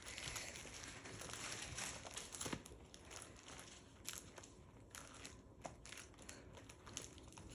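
Plastic sleeve pages of a trading-card binder crinkling and rustling as they are handled and turned, with scattered faint clicks and taps.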